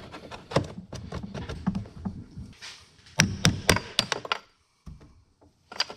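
Sharp metal knocks and taps from a hand tool striking and prying at an aluminum drain tube in a boat's transom, in two quick runs of strikes with a short pause between and a couple more near the end.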